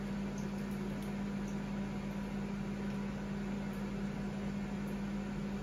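Ninja multi-cooker running mid-cycle: a steady electrical hum under an even fan noise.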